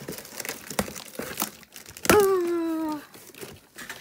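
A cardboard shipping box being pulled open along its slit tape seam: crackling, crinkling and tearing of packing tape, cardboard and plastic wrap, with scattered clicks. About two seconds in comes a short vocal exclamation, falling in pitch, which is the loudest sound.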